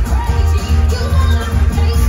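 Live pop musical-theatre number: women singing into microphones over an on-stage band of drums, bass guitar and electric guitar, with a heavy pulsing bass, heard through the theatre's sound system.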